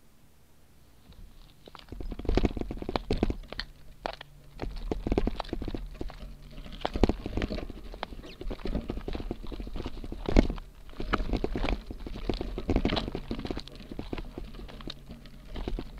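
Gravel bike riding off over loose gravel and bare rock: tyres crunching and the frame and rear-mounted camera rattling with irregular knocks and jolts, starting about two seconds in after a near-silent pause.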